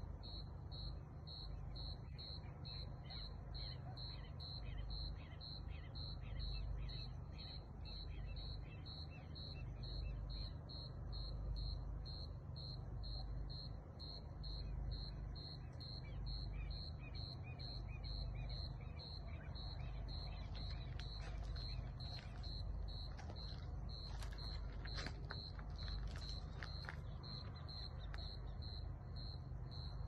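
Crickets chirping in a steady, even pulse of about two to three high chirps a second, over a low background rumble. About two-thirds of the way through, a cluster of short, sharp higher sounds joins briefly.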